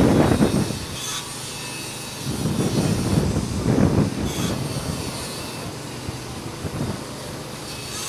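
Motor vehicles rumbling, with a low noise that swells and fades twice and then settles to a steadier drone.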